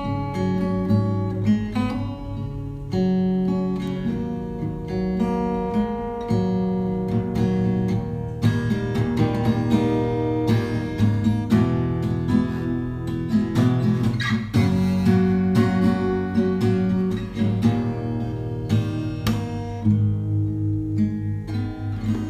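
Background music played on acoustic guitar: a continuous run of plucked notes and strummed chords.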